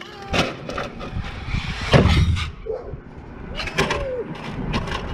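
A run of knocks and thuds, the loudest a heavy low thump about two seconds in, with a short gliding whine near four seconds.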